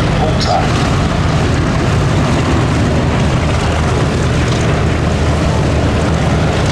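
Gloster Gladiator biplane's Bristol Mercury nine-cylinder radial engine running steadily in flight.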